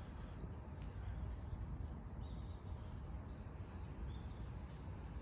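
Insects chirping: short high chirps repeating at an even pace, over a low steady rumble of background noise.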